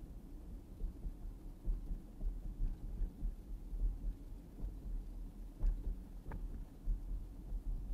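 Low, uneven rumble of a car driving along at town speed, heard from inside the cabin, with two faint clicks a little past the middle.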